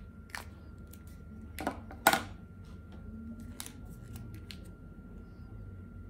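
Sharp plastic clicks of a paint marker's cap being worked off and on, the loudest about two seconds in, followed by a few lighter clicks and taps.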